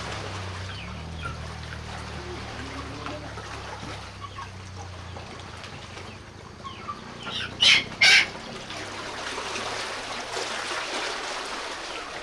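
A chicken gives two loud, short squawks in quick succession about eight seconds in, over the steady wash of lake water. A low engine hum fades out in the first half.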